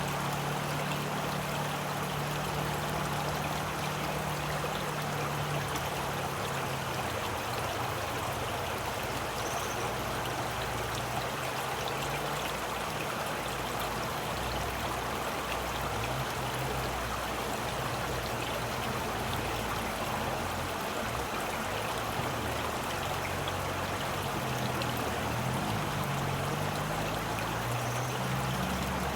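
Running water flowing steadily: a continuous, even rushing with no breaks.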